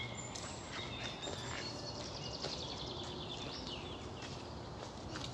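Woodland birdsong in the background: a songbird sings a rapid trill ending in a short flourish, with a few thin whistled calls from other birds.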